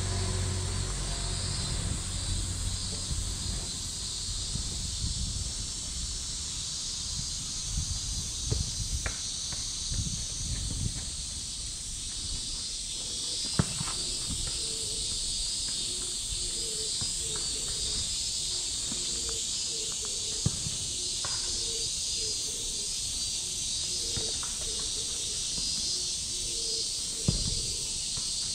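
Cicadas buzzing in a steady high-pitched chorus, over footsteps and a few sharp clicks close to the microphone.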